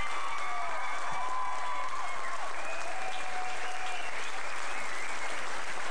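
Theatre audience applauding steadily, with cheering voices whooping over the clapping.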